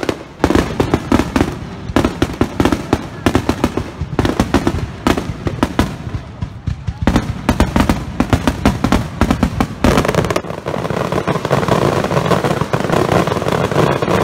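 Aerial fireworks going off in quick succession, a rapid run of sharp bangs and crackles. About ten seconds in they merge into a dense, continuous crackling barrage.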